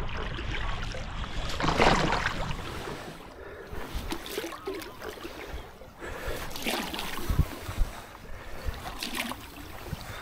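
Stand-up paddle strokes in a strong river current, the water splashing and rushing around the boards in swells about every two seconds, with wind rumbling on the microphone.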